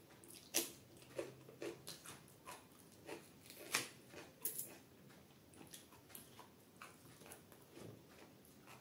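Close-miked eating sounds: irregular sharp clicks and wet smacks of chewing, with a crisp bite of raw carrot near the start, and fingers squishing through dal and rice on a wooden plate.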